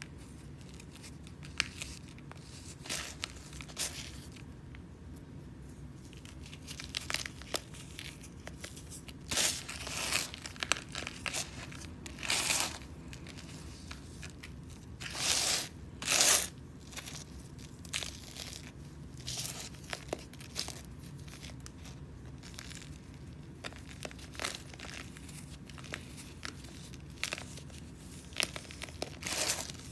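Dry compacted sand crunching and crumbling as fingers break it apart, in irregular gritty bursts, the loudest about halfway through.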